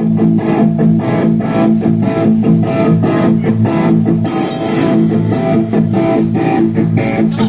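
Live rock band playing an instrumental passage: electric guitars over bass with a steady beat.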